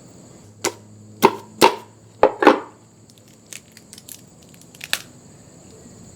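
Chef's knife chopping through a fire-cooked mud crab, cutting it in half: about five sharp cracks in quick succession in the first two and a half seconds, then a few lighter clicks.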